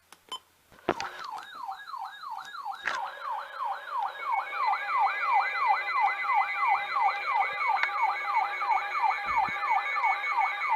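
Electronic siren in a fast yelp, a rising sweep about three times a second, getting louder. A couple of clicks come just before it starts, and a steady high tone joins about four seconds in.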